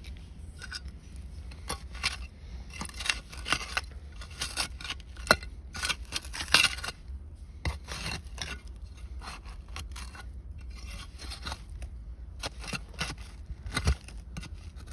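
Digging in dump soil: a tool scraping and crunching through dirt and buried debris in irregular strokes, with occasional sharper clicks.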